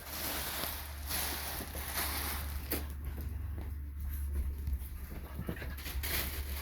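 Dogs scuffling and playing: uneven bursts of rustling and scrabbling with a few light knocks, over a steady low hum.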